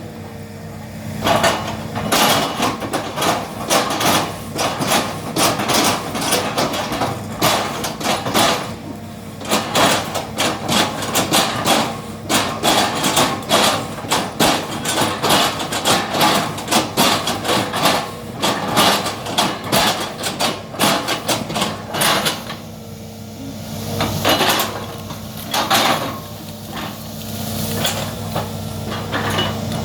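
Excavator engine running steadily under a dense, irregular clatter of knocks and clanks as it chops up oil palm trunks. The knocking eases for a few seconds about two-thirds of the way through, then picks up again.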